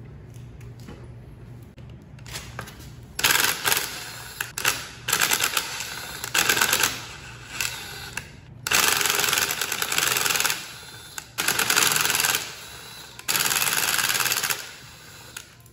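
Cordless impact driver rattling in a series of short bursts, about six, starting some three seconds in, as it unscrews the bolts holding the brake rotor to the dirt bike's rear wheel hub.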